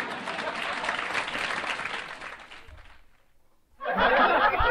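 A crowd applauding, a dense patter that fades out after about three seconds. After a short near-silent gap, a louder, busier burst of sound starts near the end.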